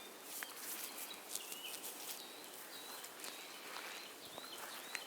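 Birds singing faintly in short, high whistled notes, repeated over several seconds, with light rustling of plants and footsteps in the first couple of seconds.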